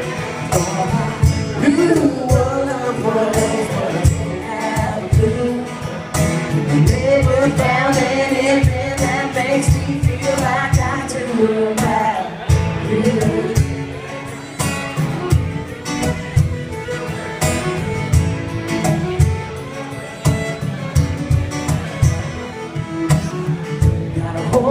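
Live acoustic country band playing an instrumental break: fiddle carrying the melody over strummed acoustic guitar and a steady cajón beat.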